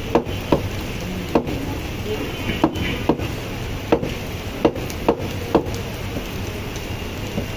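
Butcher's cleaver chopping meat on a wooden stump chopping block: about nine sharp chops at an uneven pace, ending about two-thirds of the way through, over steady background noise.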